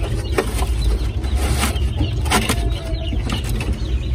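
Handling knocks against wooden pigeon nest boxes over a steady low rumble, with a faint bird call about three seconds in.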